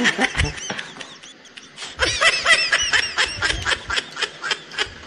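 High-pitched giggling: a short run of quick snickers at the start, then after a brief pause a longer run of rapid giggles, about four or five a second.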